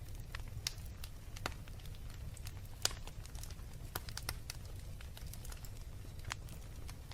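Wood fire burning in a fireplace: a steady low rumble of flame with irregular sharp crackles and pops from the logs, the loudest a single pop about three seconds in.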